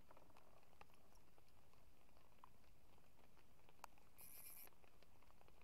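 Near silence, with faint scattered ticks and a short high-pitched buzz about four seconds in.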